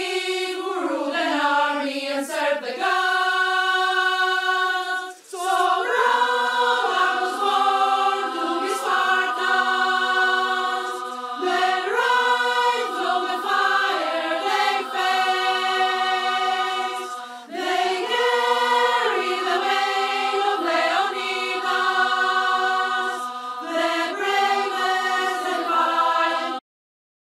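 A choir singing slow, held chords in phrases, with brief breaks between them, cutting off suddenly near the end.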